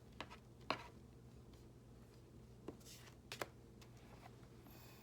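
Quiet room with a few soft clicks and taps of oracle cards being handled, the sharpest about a second in and two more in the middle.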